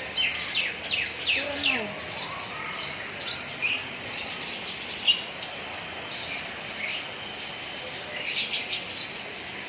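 Small birds chirping: many short, quick chirps, each dropping in pitch, coming in bursts through the whole stretch over a steady background hiss.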